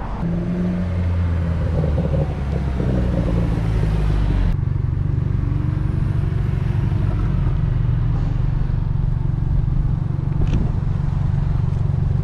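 Engines of Vanderhall three-wheeled roadsters. First a car's engine is revving and shifting in pitch as it pulls away past the curb. About four and a half seconds in, the sound changes abruptly to a steady low engine idle.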